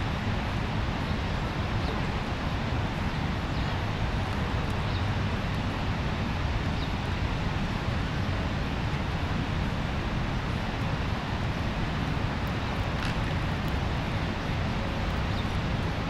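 Steady rush of the Rhine Falls: a large waterfall's water pouring and crashing, an even noise that does not let up.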